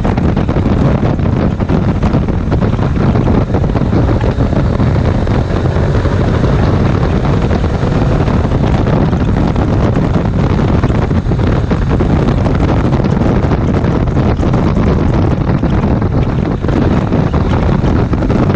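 Steady wind buffeting on the camera microphone at riding speed, with the Ducati Multistrada 1260 S's V-twin engine and road noise running beneath it.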